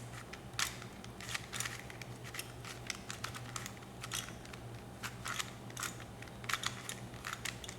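A Rubik's Cube being turned by hand, an irregular run of plastic clicks as its layers are twisted to put the first-layer corner pieces in place. A low steady hum lies underneath.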